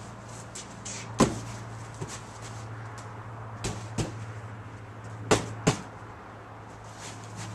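Large cardboard moving box being fitted together: the top section is worked down over the base and pushed snug, giving a few sharp knocks and thumps of cardboard, the loudest about a second in and a quick pair about five seconds in. A steady low hum runs underneath.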